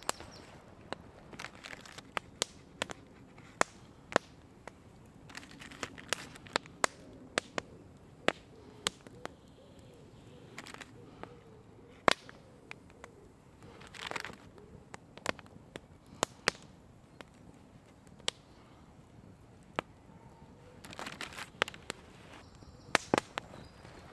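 Wood campfire crackling, with sharp irregular pops scattered throughout. Twice there is a brief rustle.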